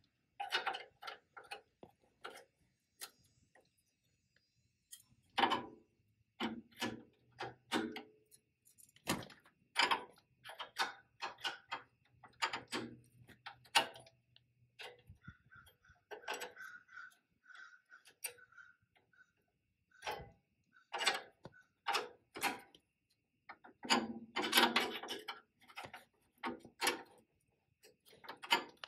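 Irregular clicks and metallic knocks of hand tools and wrenches working on the front brake line fittings and retaining clips, with a brief run of high squeaks about halfway through.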